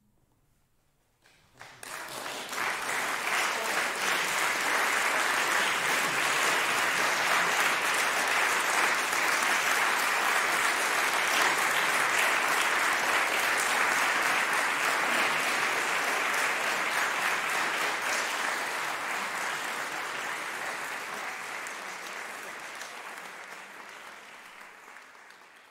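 Audience applause, starting abruptly about a second in, holding steady, then fading away gradually over the last several seconds.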